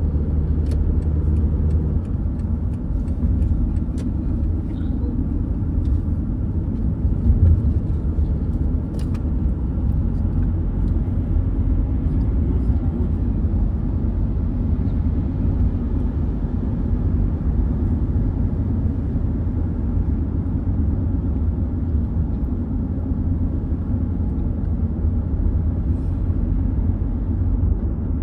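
Car driving along the road: a steady low rumble of tyre and engine noise, with a few faint clicks in the first ten seconds.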